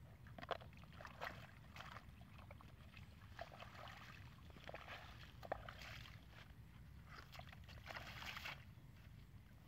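Shallow muddy puddle water being scooped and flung out with a plastic sandal: irregular sloshing splashes about every second, with a longer splash near the end as a foot steps into the puddle.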